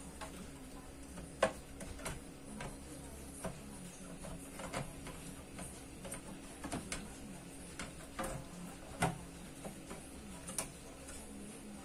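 Irregular clicks and light taps of fingers pressing and handling parts on an open power amplifier's circuit board and metal chassis, over a steady low hum.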